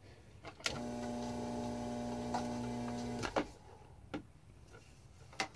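Drummond 1/2 HP submersible sewage pump's electric motor running dry out of water: it clicks on about half a second in, hums steadily for about two and a half seconds, then clicks off. It clicks on and starts humming again at the very end.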